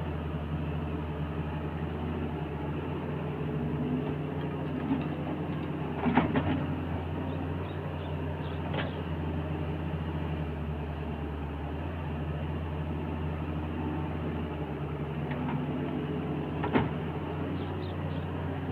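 Diesel engine of a Doosan 140 wheeled excavator running steadily under hydraulic load as it digs and loads soil, with a few sharp knocks from the bucket working, the loudest about six seconds in and again near the end.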